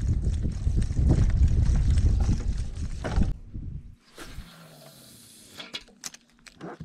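Wind buffeting the microphone for about three seconds. Then a cast: fishing line hisses off the reel for about a second and a half, followed by a few sharp clicks from the reel.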